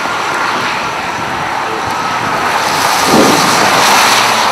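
Steady rushing noise of a car driving at highway speed: road and wind noise, with a brief swell about three seconds in.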